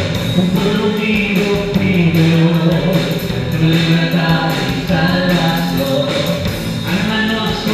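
Live rock band playing a song: drum kit, electric guitars and bass under singers holding long notes into microphones.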